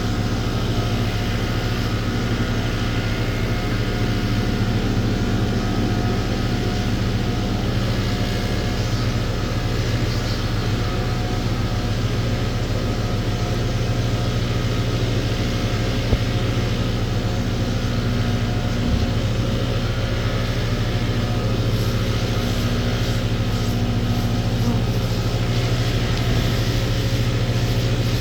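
A motor or engine running steadily with an unchanging low hum, with a couple of faint knocks.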